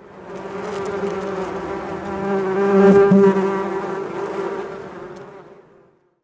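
A bee buzzing: a steady hum that grows louder to a peak about halfway through, then fades away near the end.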